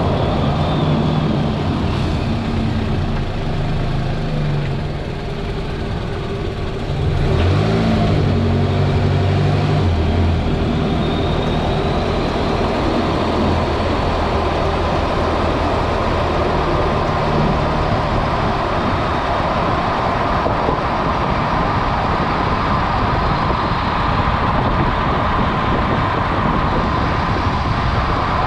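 Toyota Vanguard's 2.4-litre 2AZ-FE four-cylinder petrol engine running with a steady low hum that rises in pitch and gets louder about seven seconds in, then gives way to an even rushing noise.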